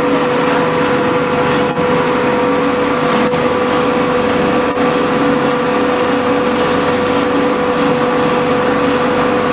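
True stone paint mortar mixer running steadily, a continuous mechanical drone with a constant hum.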